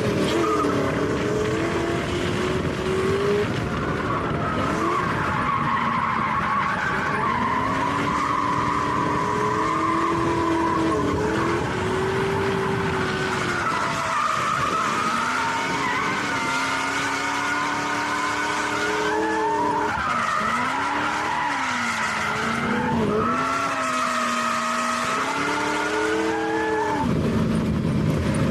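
A drift car's engine revving hard, its pitch climbing and falling continually through a drift run, over tyres squealing and skidding. The revs drop sharply and pick up again a few times toward the end.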